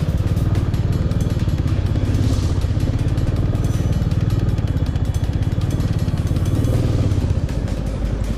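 Motorcycle engine running steadily while under way, dipping slightly in loudness near the end.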